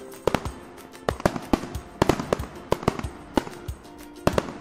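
Fireworks sound effect: scattered sharp cracks and pops, a few a second at irregular intervals, over faint background music.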